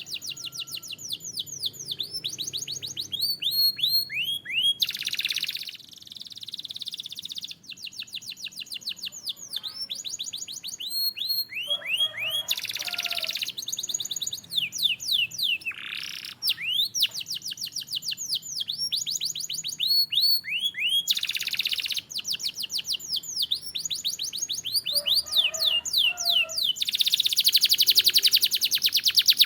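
Domestic canary singing: fast trills of repeated falling notes, broken every few seconds by short harsh, noisy passages.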